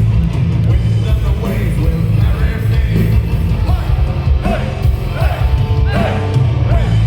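Live rock band playing loudly, with heavy bass and drums under singing voices.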